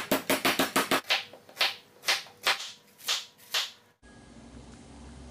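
Wooden meat pounder beating a raw chicken breast flat on a bamboo cutting board: a quick run of about six or seven blows a second, then slower single blows about half a second apart. About four seconds in it cuts off sharply to a low hum with faint music.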